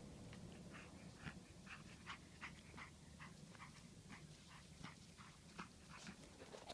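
Pug puppy making faint, short, high whimpers and grunts, roughly two a second, while it plays at biting a plush toy.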